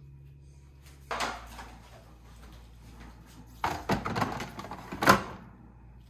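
Plastic drip tray of a Jura S8 coffee machine being pulled out and pushed back in. There is a sudden scrape about a second in, a longer stretch of sliding and knocking past the middle, and a sharp click near the end as the tray seats.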